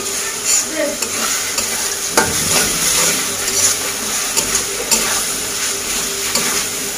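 Onions with ginger-garlic and cumin-cardamom paste sizzling in hot oil in a metal karahi, stirred continuously with a metal spatula that scrapes against the pan in repeated strokes. This is the masala being sautéed (kosha) before water and spices go in.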